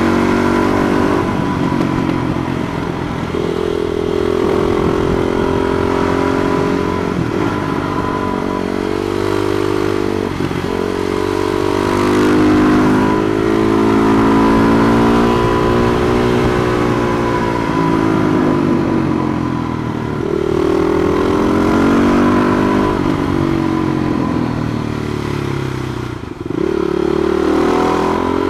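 Husqvarna SMR 510 single-cylinder supermoto engine heard from on the bike, revving hard through the gears on a twisty road. The pitch climbs and falls over and over as the rider accelerates and backs off, over steady wind and road noise, with a short drop off the throttle near the end.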